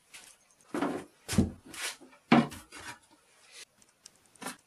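Several knocks and thumps of things being handled and set down on a wooden workbench, the heaviest about one and a half and two and a half seconds in.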